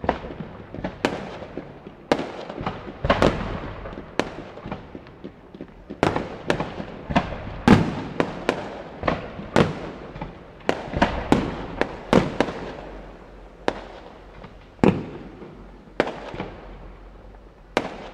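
Fireworks display: an irregular series of sharp aerial shell bursts, about one to two bangs a second, each trailing off in an echo, thinning out toward the end.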